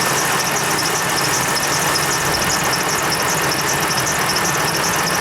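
2009 Ram 1500 pickup engine idling steadily, with a fast, even high ticking over it, as it warms up to purge air from its freshly refilled cooling system.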